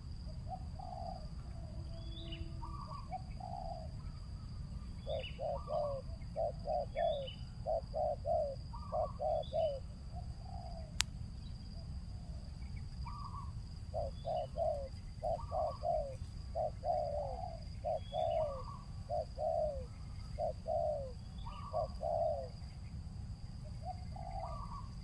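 Spotted dove (tekukur) cooing in stuttering runs of quick coos packed close together, in two long bouts, with single higher coos between them: the stammering song that dove keepers call 'gagap'. A thin steady high whine, typical of insects, runs underneath, and there is one sharp click about eleven seconds in.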